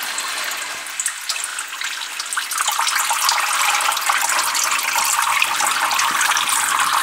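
Water pouring and splashing steadily while barley sprout trays are watered, growing louder and fuller about two and a half seconds in.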